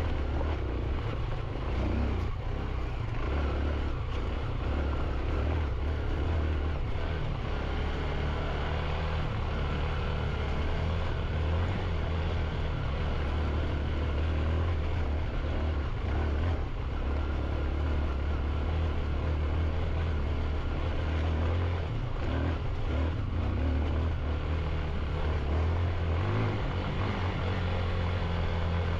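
Motorcycle engine running under way, its note shifting up and down every few seconds as the throttle changes, over a steady rush of noise.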